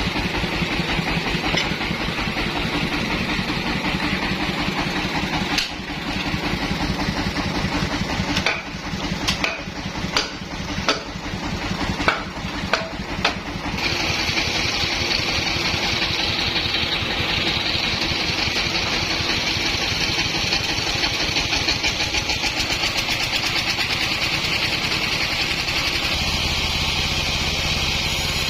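Sawmill engine running steadily, with a string of sharp knocks and clatters about halfway through, after which a steady higher-pitched whine joins it.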